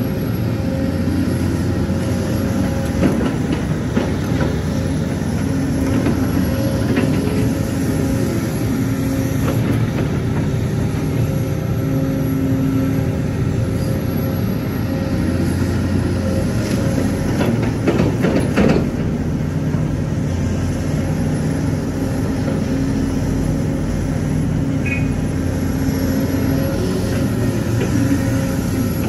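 Sumitomo excavator's engine running steadily, its pitch rising and falling as the machine works, with scattered clanks and knocks, a cluster of them about two thirds of the way through.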